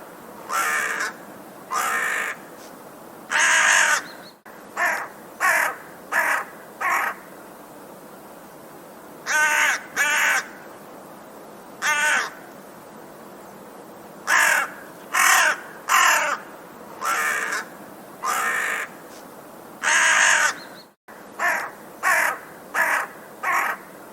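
A crow cawing repeatedly in bouts of one to four caws, with pauses of one to two seconds between bouts, over a faint steady background hiss.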